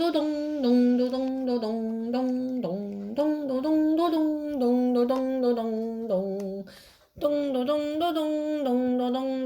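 A young child humming a ringtone-like tune with her voice, imitating a video call ringing. The tune goes in short stepped notes, breaks off briefly about seven seconds in, then starts over.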